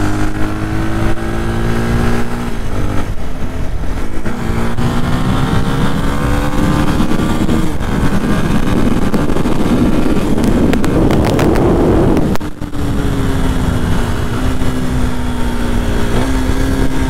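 Yamaha WR 125 X's single-cylinder 125 cc four-stroke engine under way, pulling up through the gears: the pitch climbs, drops at a shift about two seconds in, then climbs again. In the middle a rushing noise swells over it at speed. After a brief dip the engine pitch falls, holds steady, and rises a little near the end.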